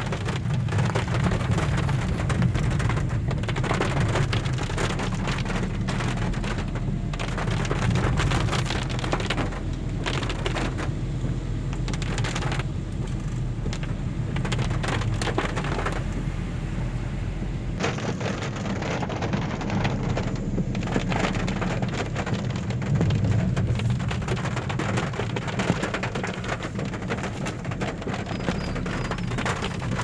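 Car cabin noise while driving in rain: a steady low road and engine rumble, with rain pattering on the roof and windscreen. A little past halfway the deepest part of the rumble eases.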